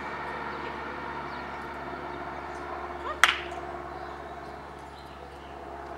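A single sharp click or snap about three seconds in, over a faint steady background hum.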